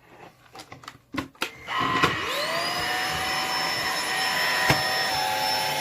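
A few sharp plastic clicks, then a cordless vacuum cleaner's motor switches on a little under two seconds in, its whine rising quickly in pitch and then running steadily.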